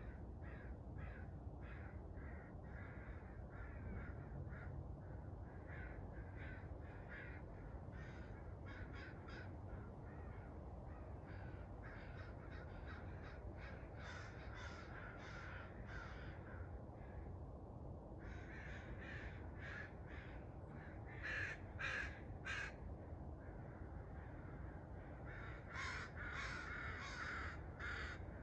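Corvids calling: series of short, harsh, rasping calls repeated throughout, louder about three-quarters of the way in and again near the end, over a steady low background hum.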